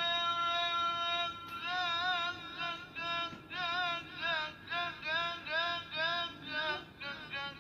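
A male Quran reciter singing through a microphone in the high, ornamented qira'ah style, as breath and voice training: he holds one long high note, then after about a second breaks into a run of short notes, about two a second, each wavering up and down, stepping lower near the end.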